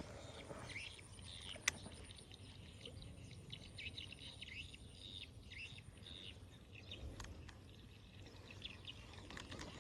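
Faint birds chirping: many short, high chirps scattered over a quiet outdoor background, with a single sharp click about a second and a half in.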